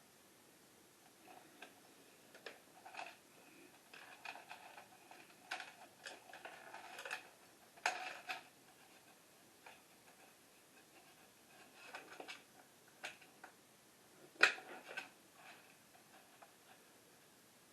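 Faint, irregular clicks, taps and short rustles of packaging and parts being handled while an LED grow light is unboxed, with a sharper knock about fourteen and a half seconds in.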